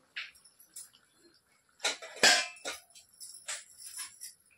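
Irregular metallic clinks and jingling, the loudest cluster a little past halfway.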